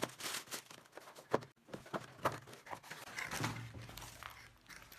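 Packaging being torn open and handled by hand: irregular rustling and crinkling with sharp clicks and taps.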